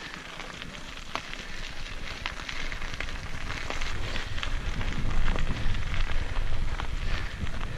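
Mountain bike tyres rolling and crunching over a gravel trail, with many scattered clicks and rattles. A low wind rumble on the microphone grows louder from about halfway as the bike picks up speed.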